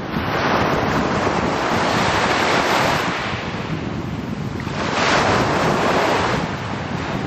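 Small sea waves breaking at the water's edge and washing up a pebble beach: one surge of surf over the first few seconds and another about five seconds in. Wind rumbles on the microphone throughout.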